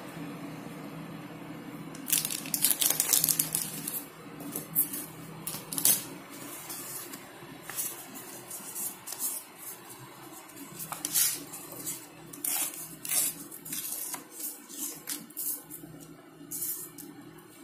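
A sheet of watercolour paper being torn by hand and handled: a long stretch of crackling, rustling paper about two seconds in, then short papery crackles and rustles on and off.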